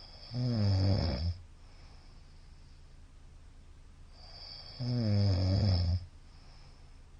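A middle-aged man snoring loudly in his sleep. Two snores come about four and a half seconds apart, each a low buzzing snore lasting about a second.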